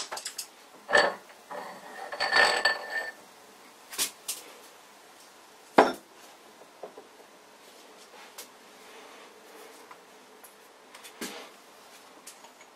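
Metal clinks and scrapes as a lathe spindle is worked out through its cast-iron stepped pulley and tapered bronze bearing. There is a ringing clank about two seconds in and a sharp knock near six seconds, then faint scraping and ticks.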